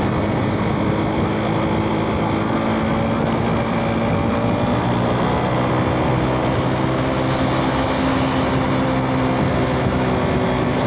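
Suzuki Smash 110 cc single-cylinder four-stroke motorcycle engine running while riding, with the engine note shifting a little as the throttle changes. It sits over a steady rush of wind and road noise.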